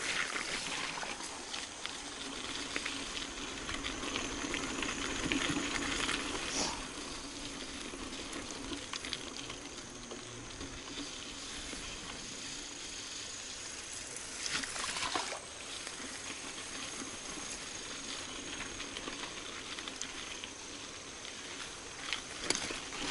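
Mountain bike rolling along a dirt or gravel trail: a steady rush of tyre noise with scattered clicks and rattles.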